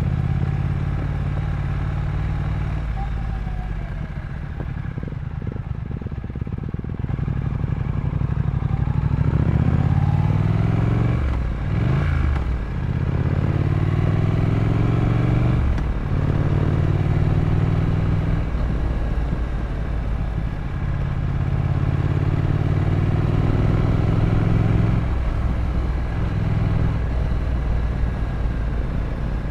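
Triumph Scrambler 900's parallel-twin engine running under way, rising in pitch as it accelerates and dropping back at each of several gear changes. It is quieter for a stretch about four to seven seconds in, where the throttle eases off.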